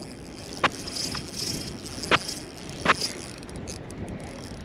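Fishing gear on a kayak clicking and rattling while a hooked bass is played in: three sharp clicks over a light, high jingling rattle.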